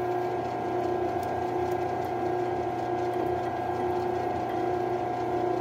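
Grizzly G0602Z metal lathe running with a steady whine from its motor and gears while a drill bit in the tailstock bores into the end of a spinning pin, lubricated with cutting oil. The drilling is going well.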